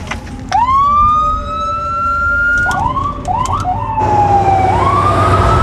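Ambulance electronic siren switched on: a wail winds up fast and keeps climbing slowly, breaks into a few quick rising chirps, then falls and winds up again, over the vehicle's low running rumble.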